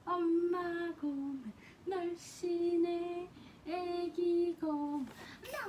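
A woman singing a simple tune to a baby: a string of held, steady notes with short breaks between them.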